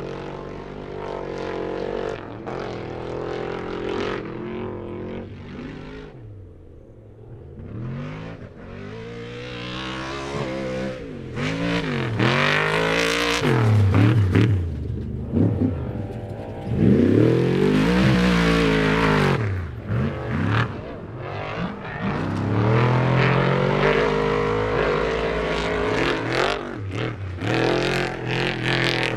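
Off-road race trucks' engines revving hard as several pass one after another, the pitch climbing and dropping again and again as they change gear. The loudest pass comes about halfway through.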